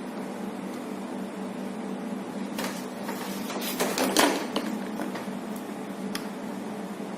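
A steady electrical hum with a short burst of handling noise, clicks and rustling, about three to four and a half seconds in.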